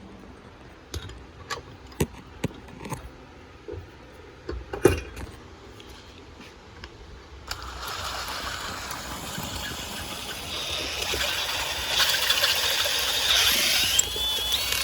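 Scattered knocks and clicks of a metal fitting being handled and set up. Then, from about seven and a half seconds in, a drill runs steadily with a 5/16 in. bit cutting out the inside of a 3/8 in. air coupler fitting to remove the burr that restricts airflow. The cutting noise grows louder, and a rising whine comes in near the end.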